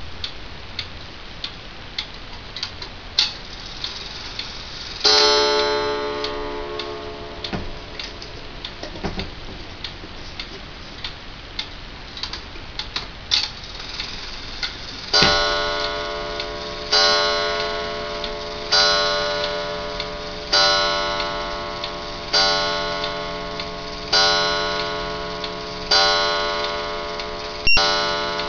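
D&A wall clock ticking, with one chime strike about five seconds in. From about fifteen seconds the clock strikes the hour with a slow run of chime strikes, about one every two seconds, each ringing and fading slowly.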